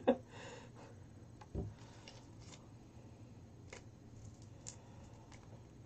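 Faint rustling and crinkling of a small folded paper slip being handled and unfolded by hand, with a few soft clicks and one low thump about one and a half seconds in.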